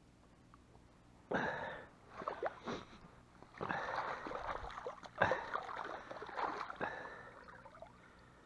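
Wire-mesh keepnet being hauled up out of the river, water splashing and pouring off it in several surges starting about a second in.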